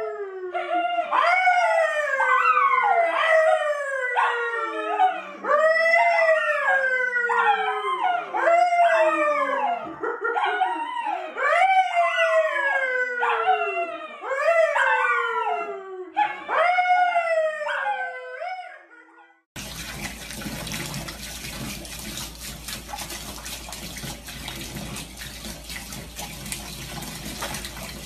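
A man and a brown poodle howling together: a string of overlapping howls, each sliding down in pitch. About 19 seconds in they cut off and a steady rush of water in a bathtub follows.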